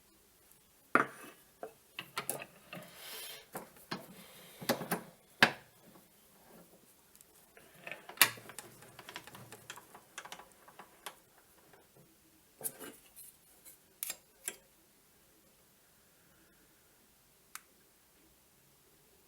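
Small metal tools and parts clinking and knocking irregularly as they are handled, with a little scraping in between; after about 14 seconds only a single click.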